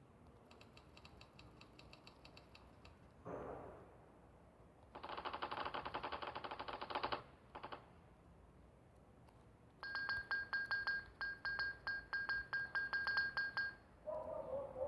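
Keyboard key sounds played as keys are struck: quick, even runs of clicks, the later run with a short pitched beep on each click.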